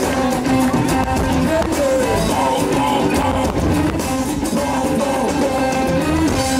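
Live rock band playing, with a male singer singing sliding, held notes over the drums and the rest of the band.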